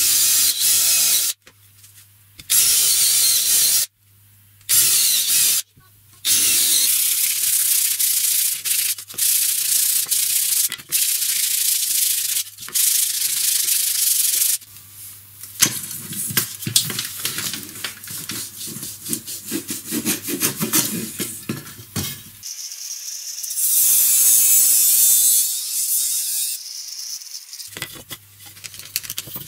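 Hand sanding of a wooden slat with sandpaper: rapid back-and-forth scratchy strokes in several long spells, broken by short pauses, then softer rubbing.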